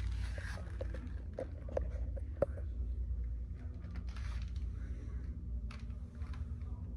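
Steady low rumble of indoor background noise with scattered light clicks and taps, several close together in the first half.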